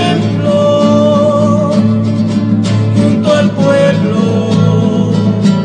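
Music: a song led by acoustic guitars in Latin American folk style, with melody notes held over a steady strummed accompaniment.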